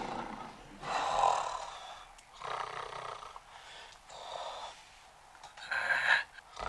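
A man snoring, four rasping snores each about a second long with short pauses between them.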